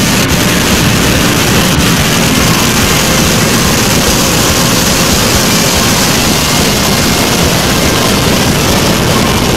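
Space shuttle launch: the rocket engines' loud, steady roar.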